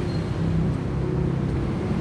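Woodworking machine running steadily, a continuous low motor hum.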